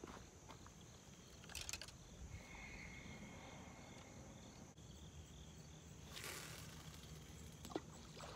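Steady high chirring of insects, with a brief swishing rush a little past the middle as a spinning rod is cast and line pays out.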